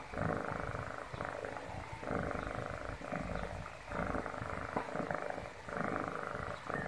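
Kitten purring close to the microphone, a rough, finely pulsing purr that swells and eases in a regular cycle about every two seconds with its breathing.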